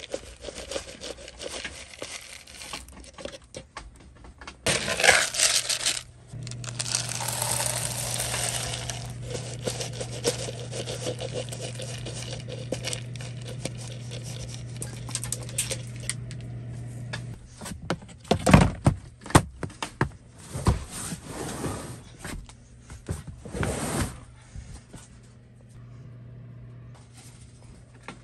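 Dry rabbit feed pellets poured from a scoop into a galvanized metal feeder, rattling and clattering against the metal in several pours.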